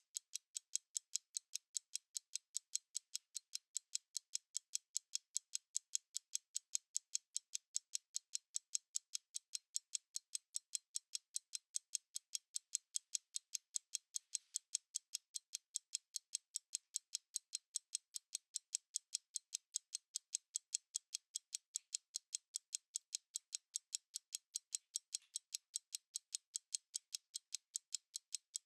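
Mechanical stopwatch ticking steadily, with rapid, even, sharp ticks of about four to five a second.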